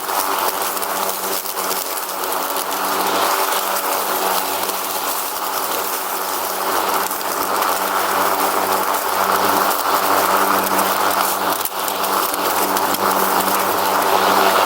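Riding lawn mower running steadily at speed: a steady engine hum under a loud, constant hiss.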